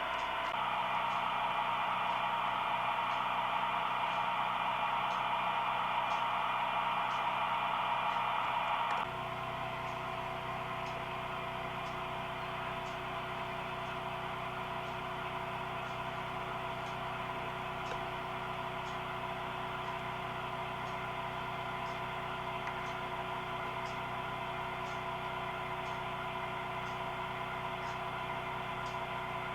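HO-scale model train running, a steady hum with a faint tick about every two-thirds of a second. About nine seconds in the sound changes suddenly and drops a little in level.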